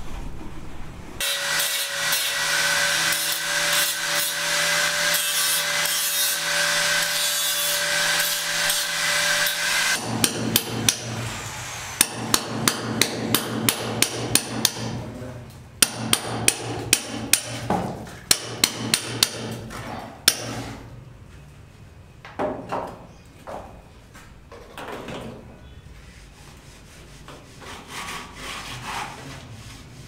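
Hand-tool work on concrete at a building site. It opens with a steady machine sound carrying a few held tones. About ten seconds in, a quick run of sharp hammer taps starts, and after them come separate rasping strokes of a tool scraping a rendered wall.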